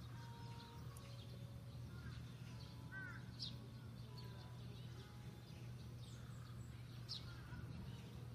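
Faint outdoor ambience: a steady low hum with small birds chirping and calling here and there, the clearest calls about three and seven seconds in.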